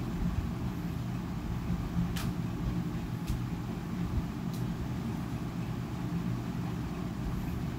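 A steady low machine hum in a kitchen, with a few faint clicks as a ladle stirs thick tomato thokku in an iron kadai.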